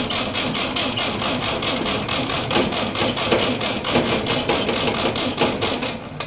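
Petrol Willys CJ3B Jeep's Hurricane four-cylinder engine cranking on the starter without catching, a rhythmic chugging of about four to five beats a second; it stops suddenly near the end. The engine won't start.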